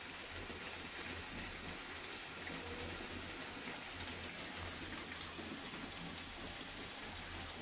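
Faint, steady crackling sizzle of a pan of chicken curry gravy still simmering on the heat.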